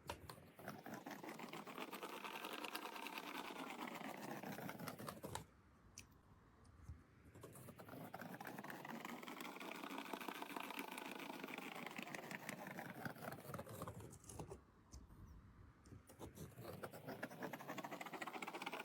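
Paint roller rolling through wet paint with a sticky, crackling sound. It goes in long strokes whose pitch rises and falls, with a brief pause at each turn, twice.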